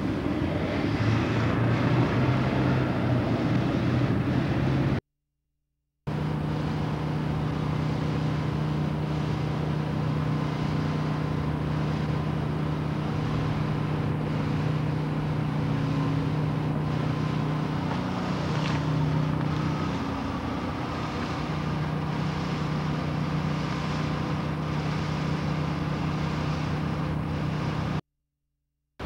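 A motor vehicle's engine running steadily, a low, even hum with road and air noise over it; the sound drops out for about a second twice, at cuts between shots.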